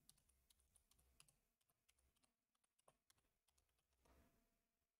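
Very faint computer keyboard typing: scattered, irregular key clicks.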